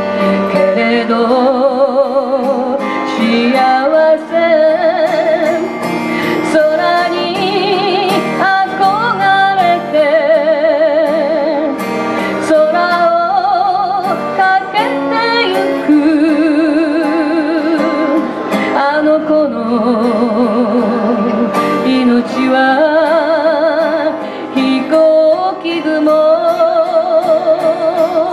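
A woman singing with a wide vibrato, accompanied by an acoustic guitar.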